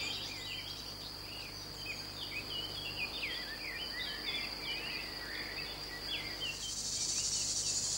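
Field ambience of small birds chirping in quick short notes over a thin steady high whine. About six and a half seconds in, a high insect chirring sets in.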